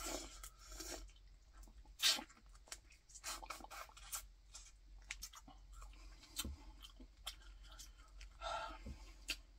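Close-up eating sounds of boiled crawfish: wet sucking and lip smacks as the meat and juice are sucked from the shells, with scattered clicks and crackles of shells being handled. The loudest is a sharp click about two seconds in.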